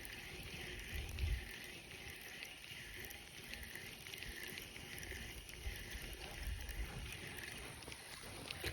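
Faint outdoor ambience: a soft call repeating about twice a second, steady in rhythm, over an uneven low rumble.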